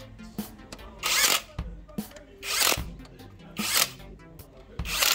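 Cordless power driver spinning bolts on top of a VW 1.6L cylinder head in four short bursts, each a fraction of a second long, with quieter clicks between them.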